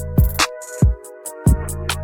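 Electronic background music with a heavy beat: deep bass kicks and sharp snare and hi-hat hits over sustained synth tones.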